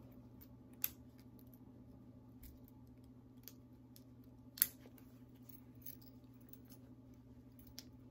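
A few light clicks and ticks from clothing being handled, with two sharper clicks, one about a second in and one about halfway through, from the metal clasps of a pair of overalls. A faint steady low hum runs underneath.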